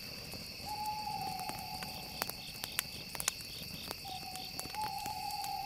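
Night-style ambience with a steady high insect-like drone, over which two long hoot-like tones are each held about two seconds and slide slightly down in pitch. Scattered sharp clicks are heard throughout.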